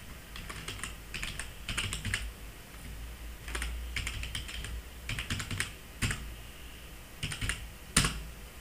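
Computer keyboard typing in quick runs of keystrokes, with one louder key strike near the end.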